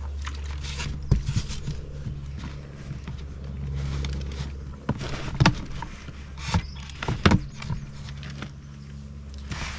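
Plastic water bottle being set upside down into a plastic drink-holder cage: scattered clicks and knocks as it is handled and seated, over a steady low hum.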